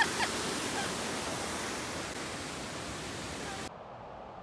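Rushing whitewater of a mountain creek cascading over boulders, a steady full-range rush with a few short sharp sounds right at the start. It cuts off suddenly near the end, leaving a much quieter faint background.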